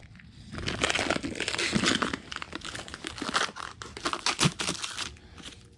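Clear plastic protective wrap being peeled and pulled off a new headlight assembly, crinkling and crackling. It starts about half a second in and dies away near the end.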